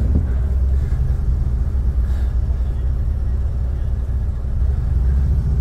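Steady low rumble of city road traffic and engines.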